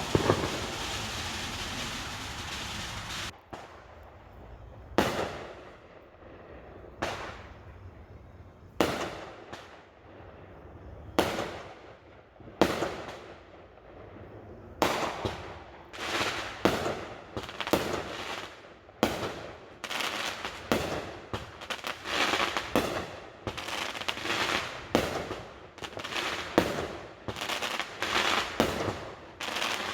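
Fireworks going off. A steady hiss cuts off about three seconds in, then sharp bangs come every couple of seconds, and from about halfway they quicken into a rapid string of reports.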